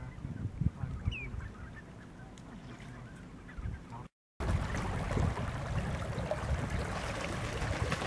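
A flock of shorebirds and gulls calling, scattered calls with short pitch glides. About four seconds in, after a brief drop-out, a louder steady rush of wind on the microphone takes over.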